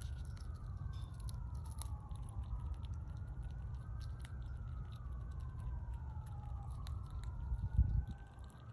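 A fox squirrel chewing a nut, with small crunching clicks, while a faint siren wails, slowly rising and falling, over a low steady rumble. A brief low thump comes near the end.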